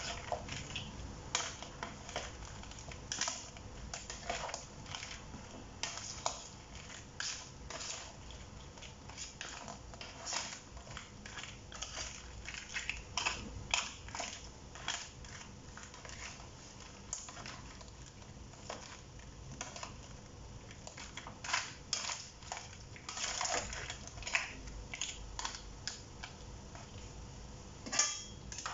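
Cooked crabs and shrimp stirred and turned in a large wok with a wooden spatula. The shells make irregular clacks and crunches as they knock against each other and the pan.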